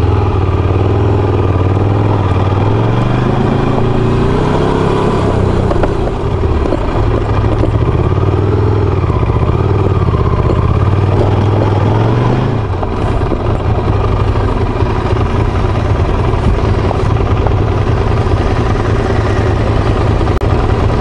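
Ducati motorcycle's engine running under load on a gravel track, its pitch rising a few seconds in as it picks up speed and wavering with the throttle, then easing off and quieter about two-thirds of the way through. Wind and road noise on the bike-mounted microphone throughout.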